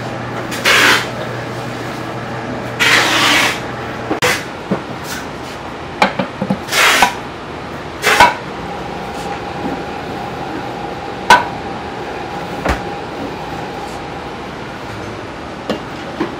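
Flour being scooped by hand in a steel dough-mixer bowl: a metal scoop scrapes and knocks against the bowl, with short rushing hisses and several sharp clinks. A low steady hum stops about four seconds in.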